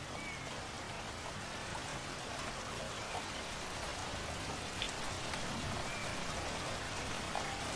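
Steady rain falling, with two faint short high chirps, one near the start and one about six seconds in.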